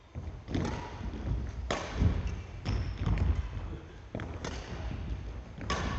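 Badminton rally: rackets striking the shuttlecock sharply about once a second, with players' footsteps thudding on a wooden sports-hall floor, echoing in the large hall.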